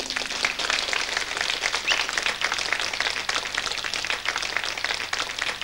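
Audience applauding between songs: a steady mass of hand claps.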